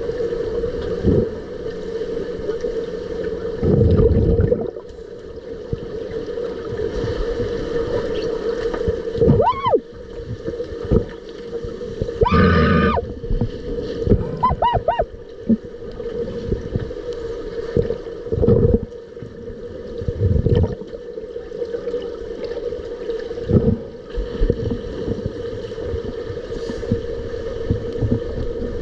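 Underwater sound in a swimming pool: a steady hum under bubbling and gurgling, with irregular knocks and thumps as finned swimmers grapple. A few brief pitched tones, one rising, come about ten to fifteen seconds in.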